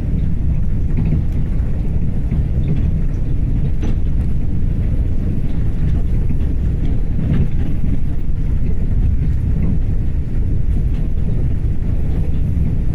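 Steady low rumble of a push-pull Tze-Chiang express passenger coach running along the track, heard from inside the car, with faint light ticks and rattles.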